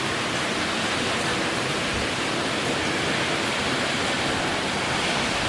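Steady, dense rush of typhoon wind and heavy rain, even and unbroken.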